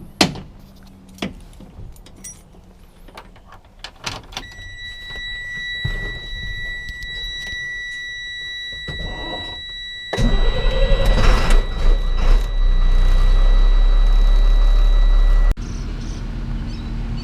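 Skid steer being started: a few clicks and knocks, then a steady high warning tone from about four seconds in. About ten seconds in the engine cranks and catches and runs loudly with the tone still sounding, and near the end it drops to a quieter steady idle.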